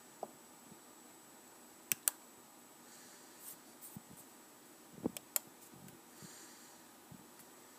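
A few faint, sharp computer clicks over low room hiss: two close together about two seconds in and another pair around five seconds in, as the pointer dismisses a dialog and opens the Start menu.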